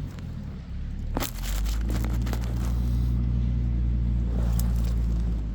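An engine idling steadily with a low hum, a little weaker for the first second. Scattered knocks and clatters sit on top, the sharpest about a second in.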